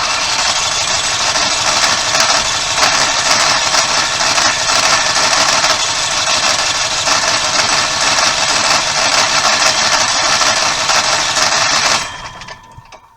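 RV generator engine running loud and rattly on its first start after sitting unused for months, then cutting out about twelve seconds in and winding down.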